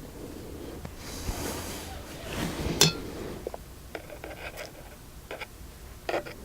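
Light clinks, scrapes and small ticks of metal machine parts and tools being handled on a workbench. A short hiss comes in early on, and one sharper click just under three seconds in is the loudest sound.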